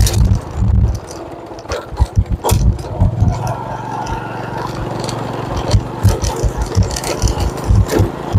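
Motorcycle engine running at low speed over a rough, potholed lane. Irregular low thumps and sharp knocks and rattles come from the jolting over bumps.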